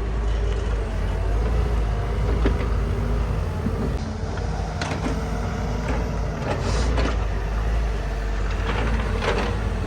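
Heavy log-handling machine's diesel engine running steadily with a low hum while its grapple picks up logs, with a few short knocks about two and a half, five and seven seconds in.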